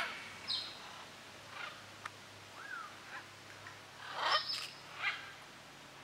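Parrots giving scattered short calls, with a whistle that rises and falls near the middle and the loudest call a little over four seconds in.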